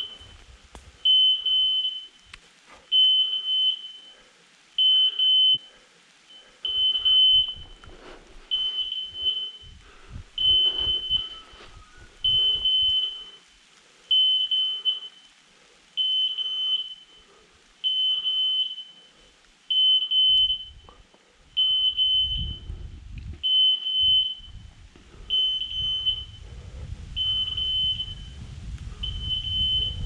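Electronic beeper on a hunting dog's collar, sounding a short high beep about every two seconds. A low rumble joins in the second half.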